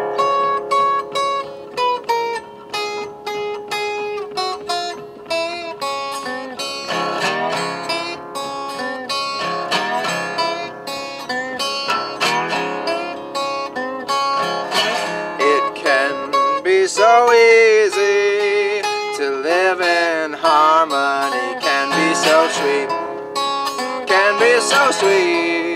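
Wood-body resonator guitar played fingerstyle, picking a blues melody over repeated bass notes.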